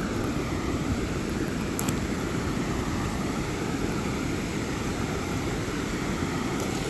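Steady rush of a river spilling over rock slabs in small white-water rapids, with a low wind rumble on the microphone.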